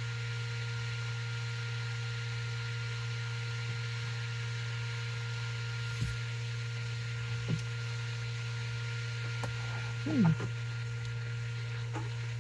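Steady low electrical-type hum with a few faint higher tones over it, broken by a few small clicks and a short falling sound about ten seconds in.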